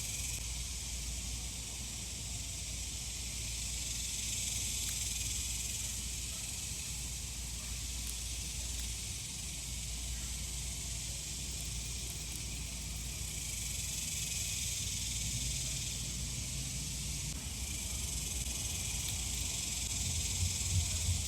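Chorus of many cicadas: a steady high buzzing hiss that slowly swells and eases every few seconds.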